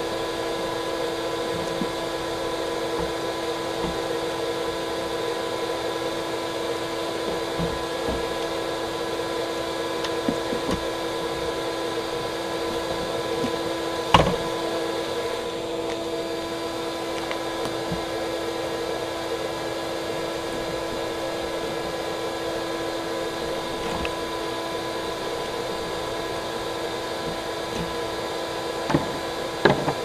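A small electric motor running with a steady hum at one unchanging pitch. A sharp knock comes about fourteen seconds in, and a couple of clicks near the end.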